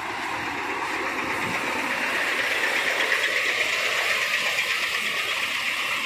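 Kamaz dump truck's diesel engine running steadily as the loaded truck crawls forward through mud. It grows louder to about halfway through, then eases off.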